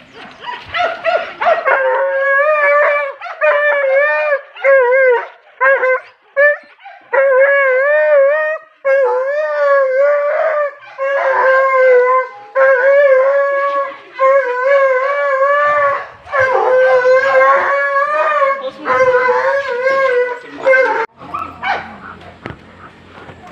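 Alaskan malamute "singing": a long run of wavering howls, one short call after another, stopping shortly before the end.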